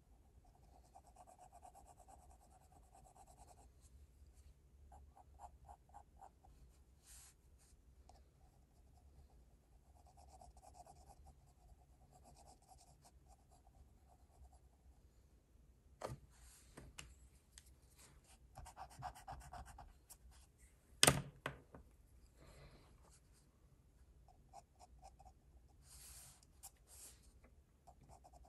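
Pencil scratching on drawing paper in short bursts of quick shading strokes. A sharp tap comes about 16 seconds in, and a louder knock about 21 seconds in.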